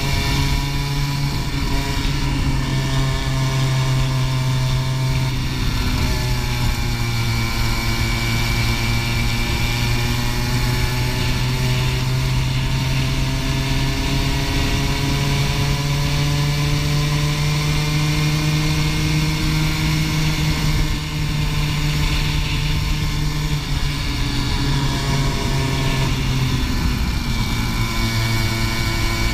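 Racing kart engine at speed, heard close up from on board the kart over rushing noise. Its note climbs slowly over a long stretch, drops about twenty seconds in, and rises again near the end.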